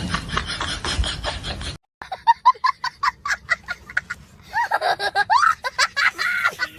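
A comic sound effect of quick, squeaky, high-pitched syllables bobbing up and down in pitch, coming in after the background noise cuts off abruptly about two seconds in.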